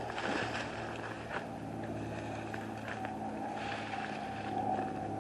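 Steady low mechanical hum over a noisy background, with a faint higher steady tone joining about three seconds in.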